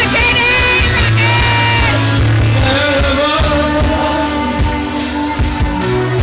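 Live band playing loud rock music, with a singer's voice over the band.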